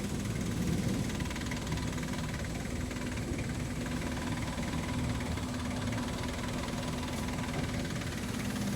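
Vehicle engine running steadily with a constant low drone, as heard while riding along.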